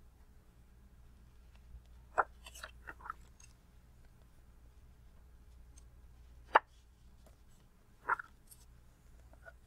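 Pages of a glossy magazine-style paperback being turned and handled: a handful of short crisp paper crackles and flaps, the sharpest about two-thirds of the way through, over a faint steady low hum.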